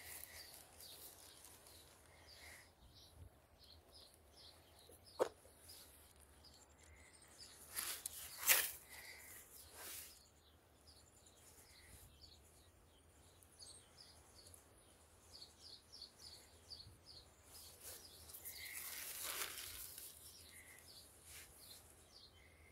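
Small birds chirping faintly, with a sharp click about five seconds in and a few short rustling noises, the loudest around eight to ten seconds in and a softer one near the end.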